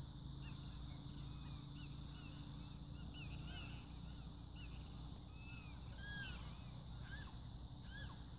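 Many birds calling at once, short rising-and-falling calls overlapping several times a second, over a low steady rumble.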